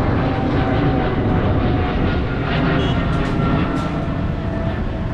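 An airplane flying over, its engines a steady drone with a faint whine that slowly drops in pitch, mixed with road traffic.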